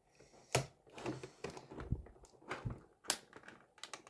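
Plastic toy and its packaging being handled and cut free: a string of irregular sharp clicks and knocks, the loudest about half a second in and about three seconds in.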